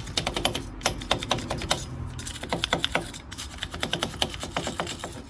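Hand wire brush scrubbing a rusty steel wheel hub in rapid back-and-forth strokes, with a short pause about two seconds in. It is cleaning light surface corrosion off the hub face.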